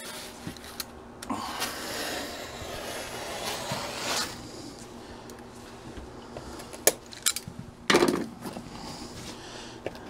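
Foil-faced insulation and loose duct tape at the back of an RV absorption refrigerator rustling and tearing as they are pulled back and cut with a razor blade, with a few sharp clicks about seven seconds in and a louder scrape about a second later.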